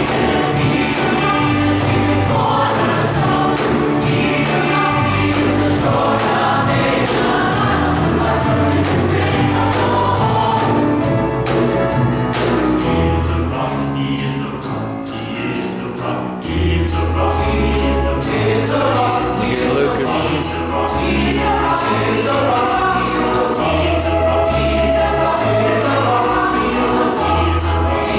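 Youth choir singing a gospel song in parts, over instrumental accompaniment with a moving bass line and a steady beat.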